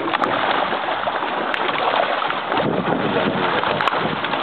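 Sea water splashing and churning as a group of sharks thrash at the surface, feeding on bait.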